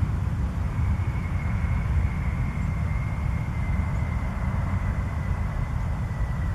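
Jet engines of a Boeing airliner during landing: a steady low rumble with a thin high whine that sets in about a second in and holds, sinking very slightly in pitch.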